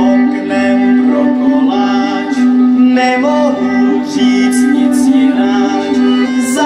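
Czech folk Christmas carol: singing with a folk band accompaniment that includes fiddles, the melody stepping steadily from note to note.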